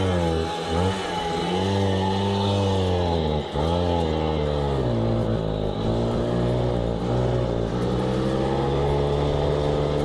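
Peugeot 103 moped's small two-stroke engine revving under way, its pitch rising and falling with the throttle. The pitch dips sharply about half a second and three and a half seconds in, then holds steadier with a slow climb.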